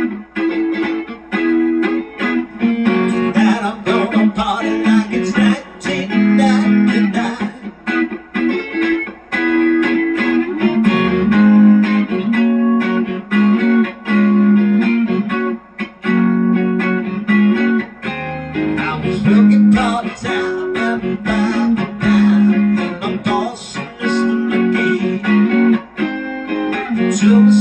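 Harley Benton Madcat Telecaster-style electric guitar playing a rhythmic part of repeated low notes and strummed chords, with no singing.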